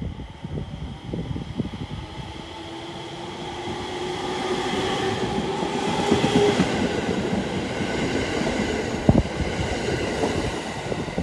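JR East 701 series electric train running through the station, its wheels clacking over the rail joints, with a motor whine rising in pitch as it goes and a sharp knock near the end.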